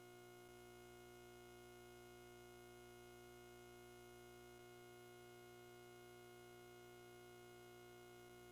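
Near silence: only a faint, steady electrical hum of several constant tones.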